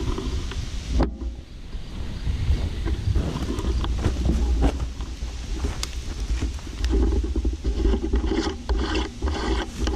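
Wind rumbling on the rifle-mounted camera's microphone, with light rubbing and a few sharp clicks from the rifle being handled, several of them close together near the end.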